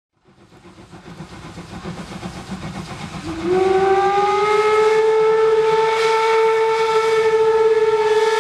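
Steam locomotive working a train, its rhythmic chuffing fading in, then about three and a half seconds in a long blast on its steam whistle that rises slightly in pitch as it opens and then holds steady.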